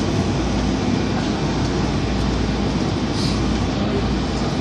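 Steady running noise heard inside a WMATA Metro Breda rehab railcar under way: a constant rumble of wheels on rail and running gear, with a brief faint hiss about three seconds in.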